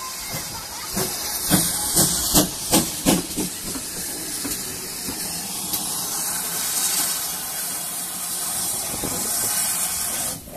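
GWR 56xx class 0-6-2T steam tank locomotive hissing loudly and steadily, with a quick run of about six sharp exhaust chuffs, a little over two a second, starting about a second and a half in.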